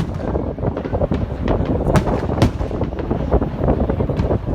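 Fireworks bursting in a display: sharp bangs at the start, twice around two seconds in and once near the end, over a steady low rumble with wind on the microphone.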